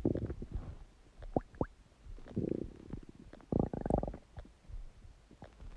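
Human stomach gurgling and rumbling: irregular low gurgles broken by short squeaky pops, with two louder gurgles, one about two and a half seconds in and a stronger one near four seconds.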